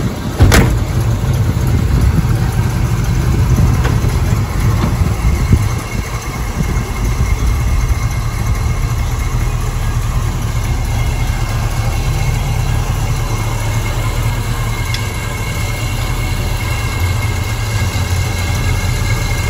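The 350 small-block V8 of a 1969 Camaro SS runs steadily at idle. A car door shuts about half a second in.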